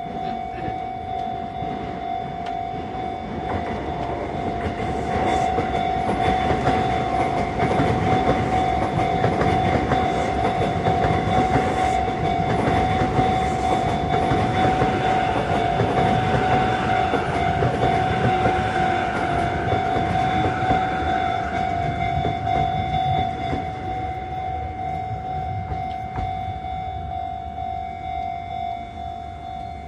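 A Sotetsu train passes over a level crossing while the crossing's warning bell rings on without a break. The rumble of the train swells from about four seconds in and dies away over the last several seconds.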